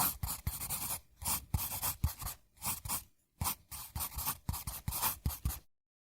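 Close, irregular scratching and tapping in quick clusters with short pauses, cutting off abruptly near the end.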